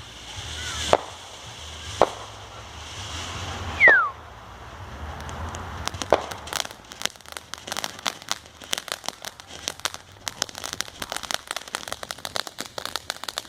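Consumer fireworks going off: a few sharp bangs about a second or two apart over a hiss, the loudest about four seconds in with a short falling whistle. From about six seconds on, a long run of rapid crackling pops follows.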